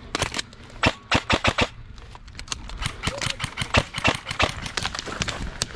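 Airsoft guns firing in short rapid bursts of sharp cracks, a few quick groups at first and then a denser, more continuous run of shots.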